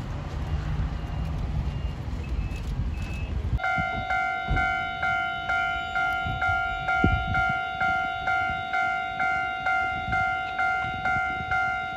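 Diesel locomotive hauling a passenger train, a low rumble, for the first few seconds. Then a railway level-crossing warning bell rings steadily, about two and a half strikes a second.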